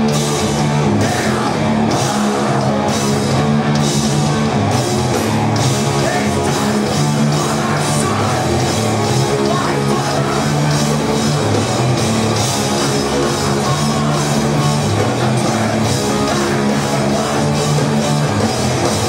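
Live loud rock band playing: distorted electric guitars holding heavy low chords over a drum kit, with cymbal strikes about once a second in the first few seconds, heard through a room full of amplified sound.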